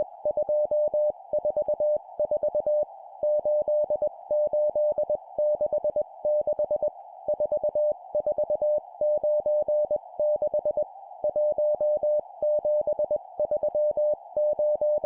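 Morse code (CW) sidetone at 20 words per minute, a single steady pitch keyed on and off in dots and dashes, sending groups of four numbers with short pauses between groups. A faint hiss sits around the tone, like a receiver's passband.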